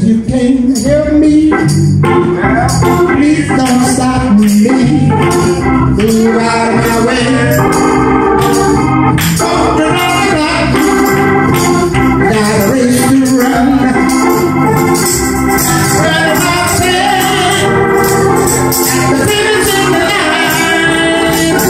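Electric console organ playing a gospel instrumental passage in sustained, full chords, with hand percussion shaken along to the beat.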